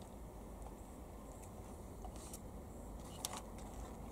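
Quiet steady low background hum with a few faint, brief clicks about two and three seconds in.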